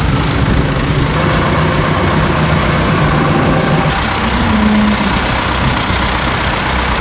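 Diesel tractor engine running steadily close by.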